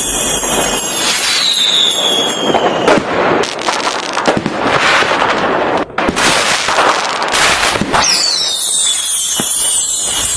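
Fireworks going off: dense crackling and popping clusters, with high whistles that slide down in pitch near the start and again near the end.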